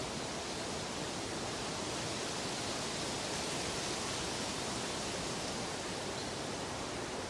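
Steady, even rushing hiss with no pitch or rhythm, a constant relaxation noise bed that swells slightly in the middle.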